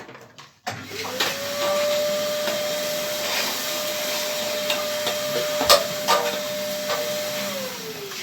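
An electric motor spinning up about a second in, running steadily with a few sharp clicks, then switching off and winding down in falling pitch near the end.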